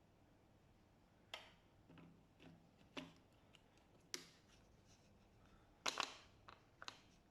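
Small parts of a pressure washer gun clicking and knocking as they are handled and fitted back together: about eight scattered sharp clicks, the loudest a quick double click about six seconds in.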